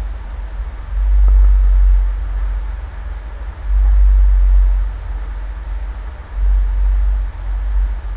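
Deep low rumble that swells and fades about every two and a half seconds, with a faint single click about a second in.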